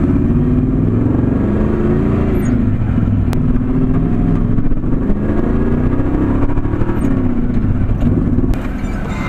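A 1983 GMC pickup's 305 V8, fed by a Rochester Quadrajet carburetor, running under way and heard from inside the cab, its note rising and falling with the throttle. It is running okay on a test drive after the carburetor's vacuum break was replaced.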